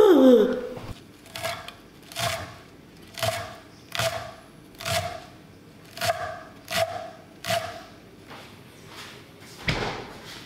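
Chives being cut in a slow, even series of short strokes, about one every 0.8 s, with a louder stroke near the end. A brief sliding tone comes right at the start.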